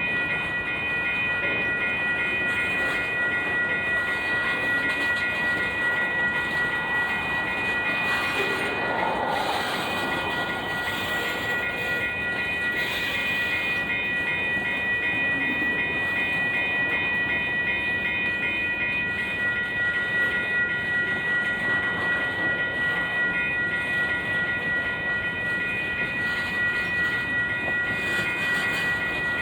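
Cars of a long Union Pacific mixed freight train rolling past steadily. Steady high-pitched tones and a fast repeating ping ride over the rolling noise throughout.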